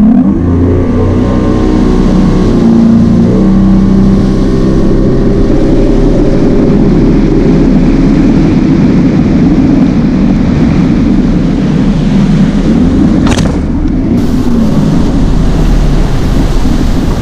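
150 hp outboard motor of a bass boat running at wide-open throttle, its pitch climbing over the first few seconds, at about 55 mph across shallow grass flats. A single sharp crack about 13 seconds in.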